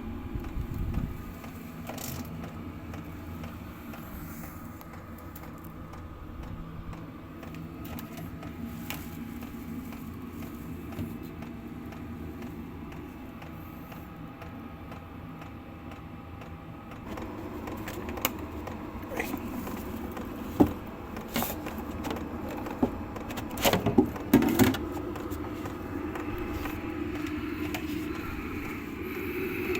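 Diesel air heater running, a steady drone of its combustion air intake and fan. About halfway through the sound grows a little louder and fuller, and a run of sharp clicks and knocks follows over several seconds.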